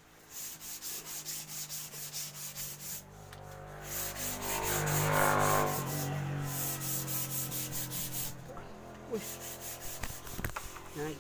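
A machine running steadily with a fast, even rasping rhythm of about five beats a second over a low hum, loudest about halfway through.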